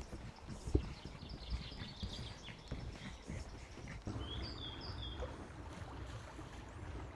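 Footsteps on a woodland path with small birds calling: a run of high chirps in the first seconds and a few short high falling notes about four seconds in. A low steady hum comes in at the same point.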